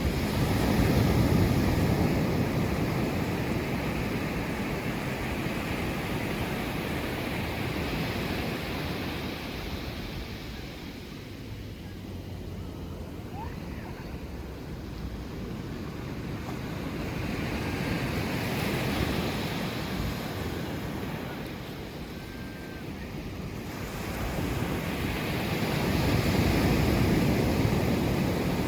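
Ocean surf on a beach: waves breaking and washing up the shore, rising and falling in slow surges every several seconds, loudest near the start and near the end.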